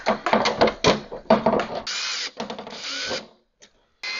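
Clicking and rattling of a metal TV-mount hanger bracket and its hardware being handled. Then a cordless drill-driver runs in two short bursts, about two and three seconds in, driving the bracket screws into the back of the TV. Near the end it starts running again steadily.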